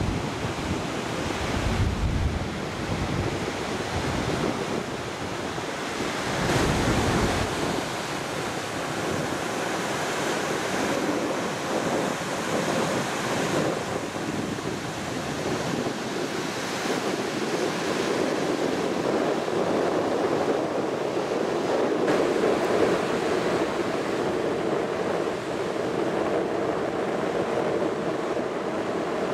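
Ocean surf breaking on a sandy beach, a steady rush of waves, with wind buffeting the microphone in low rumbling gusts during the first several seconds.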